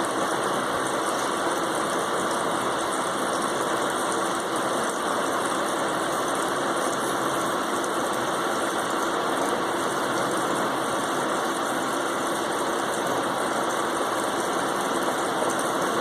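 Steady whirring mechanical noise that holds level throughout, with no rhythm or change in pitch.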